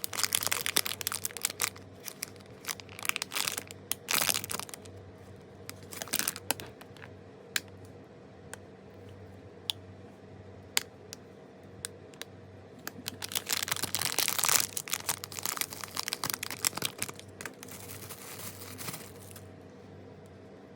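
Blind box packaging handled by hand: plastic wrapping crinkling and being torn open, in two busy stretches at the start and from about two-thirds in, with scattered sharp clicks between them.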